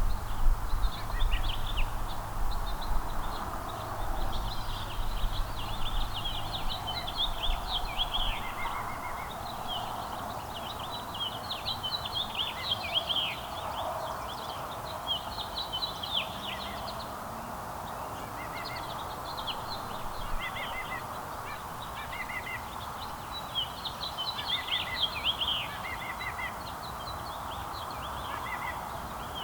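Small songbirds chirping in quick clusters of short notes, over a steady background hum of outdoor noise; a low rumble underneath stops about eight seconds in.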